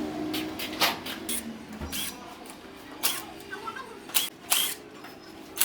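Hand tools clicking and knocking against metal motorcycle parts during disassembly: a string of sharp, separate clicks, irregularly spaced, a few louder ones near the middle and end.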